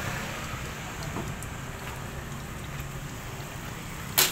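A steady low mechanical hum with a faint hiss, then a sharp knock about four seconds in.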